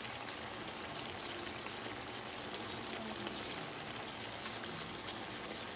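A pot of pork-and-vegetable pinakbet simmering on the stove, bubbling and sizzling with a rapid, uneven patter of small crackling pops.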